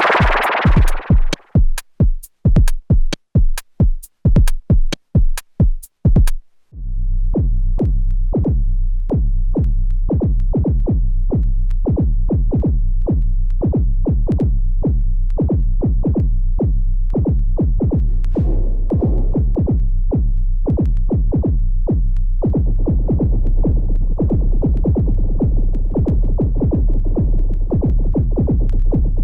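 Erica Synths Perkons HD-01 drum synthesizer playing a pattern. First comes a run of single, evenly spaced drum hits. From about seven seconds in, a steady low droning bass tone sits under a busy, fast beat, which fills out further near the end.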